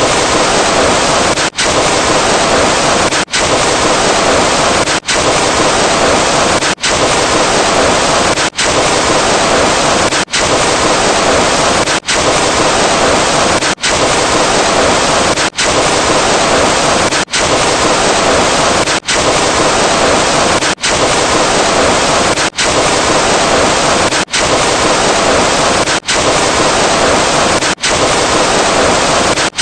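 A loud, harsh, hiss-like noise sound effect played over and over, each play lasting about 1.75 seconds and cut off by a brief gap before the next one starts, about seventeen times in a row.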